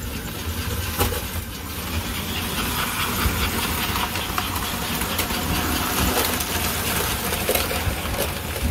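American Flyer S gauge model passenger train running on the layout track: a steady electric motor hum with the light metallic clicking and rattle of wheels on the rails, growing louder from about two seconds in as the train passes close by.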